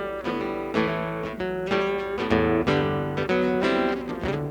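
Acoustic guitar strumming chords in a steady rhythm, about three strokes a second: an instrumental bar between sung lines of a song.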